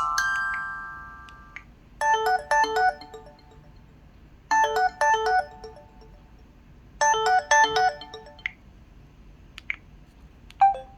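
Built-in jazz alarm tone of an LG Wine Smart phone playing through its speaker, recorded on another phone. A held chord fades out, then a short phrase of quick notes repeats three times, about every two and a half seconds. A different tone starts near the end.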